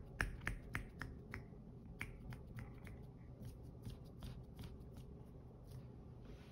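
Cat chewing crunchy food crumbs: a quick series of small crunching clicks, dense for the first couple of seconds, then slowing to scattered clicks.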